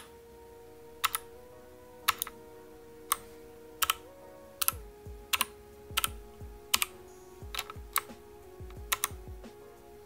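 Keys on a Motospeed CK61 mechanical keyboard being pressed one at a time, sharp clicks about once a second at first and more often from about halfway through, as the lighting modes are cycled. Background music with held notes plays underneath.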